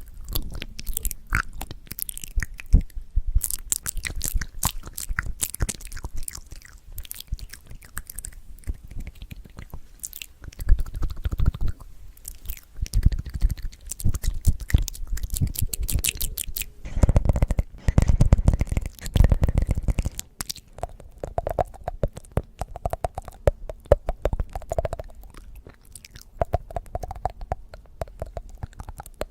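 Close-miked ASMR crunching: rapid crisp crackles and clicks, with heavier low thumps from about eleven to twenty seconds in.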